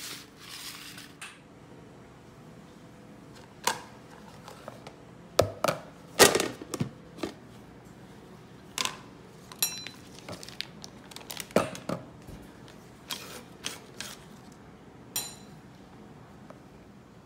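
A collapsible plastic food container and its lid are handled on a countertop, making irregular sharp clicks, taps and knocks, the loudest about six seconds in. A short rustle of parchment paper comes as the lined baking tray is slid at the start.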